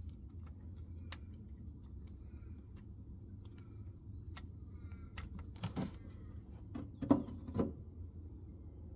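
Scattered light clicks, then three louder knocks with a short ring near the end, from handling a spanner and the removed gearbox oil drain plug during an oil change.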